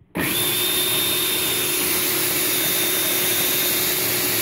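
Electric blender starting up suddenly and then running steadily at one speed, grinding a dry mix of lightly toasted sesame seeds, walnuts, sunflower seeds and oats into powder.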